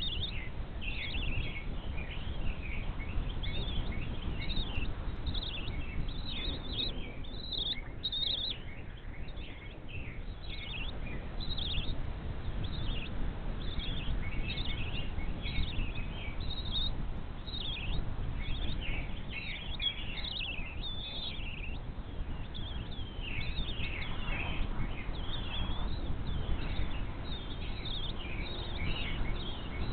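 Birds chirping: many short, high calls, often in quick runs, over a steady low background noise.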